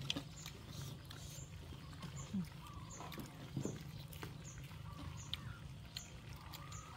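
Pet macaques eating fried chicken: faint scattered chewing and smacking clicks and a couple of short low grunts, over a steady low background rumble.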